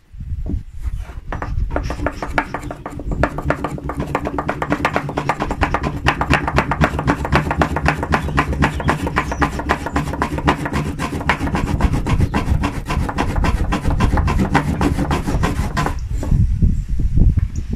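Wooden block rubbed fast back and forth across a wooden plank table, rolling a small white tinder roll beneath it, at about five strokes a second; the rubbing stops near the end.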